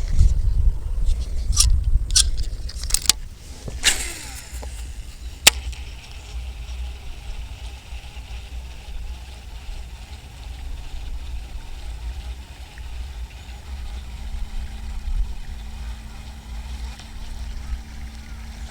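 Strong wind buffeting the microphone in a steady low rumble, with a handful of sharp clicks and knocks in the first six seconds and a faint steady hum in the second half.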